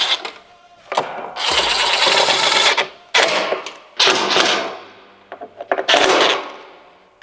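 Cordless driver running in several short bursts, tightening the screws that hold the radio in its mount.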